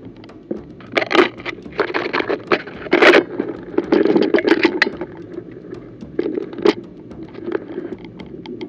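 Close scraping, crackling and crunching of a person pushing through dry brush and rough ground, with gear rubbing near the microphone. It comes in irregular bursts, heaviest in the first half, over a scatter of small clicks.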